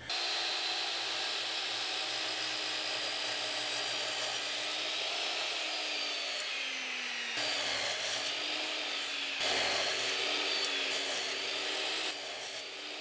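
Miter saw running and cutting through a hardwood board: a steady motor whine that sags slightly in pitch under load. The sound breaks off and resumes abruptly a few times.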